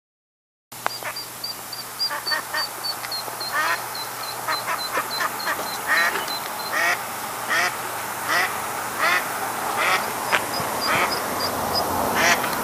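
A duck quacking over and over, roughly once a second, starting about a second in. A quick run of high peeps comes along with the first few quacks.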